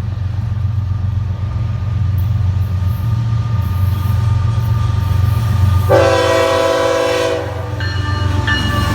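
A passing train rumbling steadily. It sounds one horn blast lasting about a second and a half, roughly six seconds in. Thin high squeals of wheels on the rails follow near the end.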